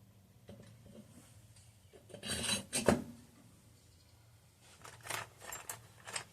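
Metal engine parts scraping and clinking as they are handled and fitted: a rasping scrape about two seconds in that ends in a sharp clink, then a few shorter scrapes and clicks near the end.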